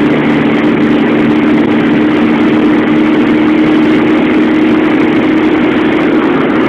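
Škoda 120 L's rear-mounted four-cylinder engine running at a steady pitch while the car drives at speed, heard inside the cabin over loud wind and road noise.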